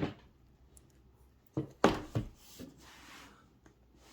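Handling noise of a 3D-printed plastic heel piece and sneaker: a sharp click at the start, then a few short knocks and clicks just under two seconds in, followed by faint rubbing.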